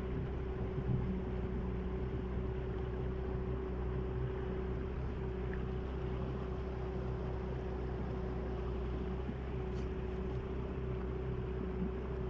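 A small boat's motor running steadily at constant speed as the boat moves across the water, with a steady droning tone over a low rumble.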